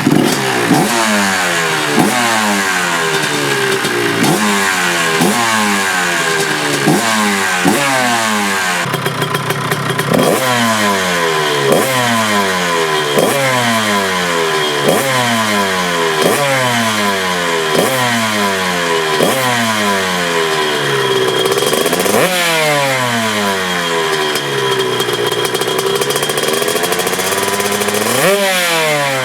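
Honda CR135 big-bore two-stroke dirt bike engine running and being revved in repeated throttle blips, about one a second, each snapping up and falling back. A quick run of ticks comes about nine seconds in, and there are a couple of longer swells in revs near the end.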